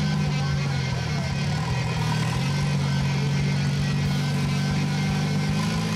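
Rock crawler's engine running steadily at low revs under load as the rig climbs over rocks, its pitch shifting slightly about a second in.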